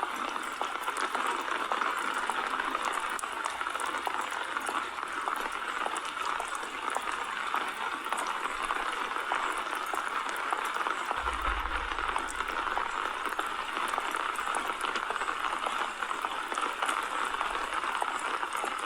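Steady rain falling, with a dense patter of fine drops.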